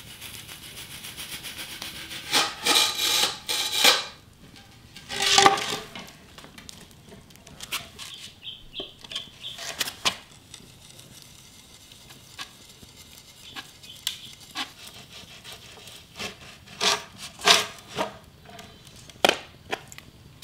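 Wood being scraped and rubbed by hand, with a few longer rasping strokes about two to six seconds in, then scattered short knocks and clicks.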